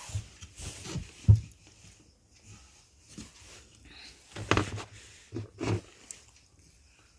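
Scattered clicks and taps of tools on a circuit board while a damaged amplifier IC is being desoldered. There is one sharp knock about a second in and a cluster of clicks later on.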